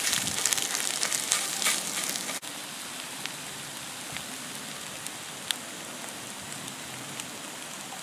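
Scrambled eggs sizzling in a small cast iron frying pan over a twig stove, with a wooden spoon scraping and stirring them for the first two seconds or so. After that a quieter, steady sizzle.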